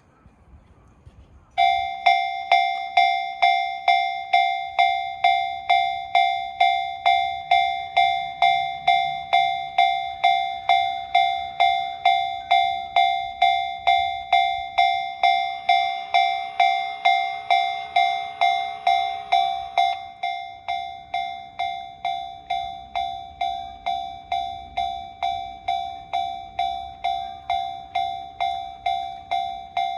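Japanese railway level-crossing warning bell starting up, its electronic ding sounding about twice a second; it drops to a lower volume about two-thirds of the way through.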